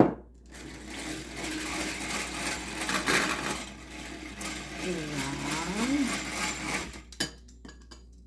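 An egg being beaten in a bowl for pie crust: a steady, busy mixing noise that runs about six seconds and stops near the end, after a sharp knock at the start.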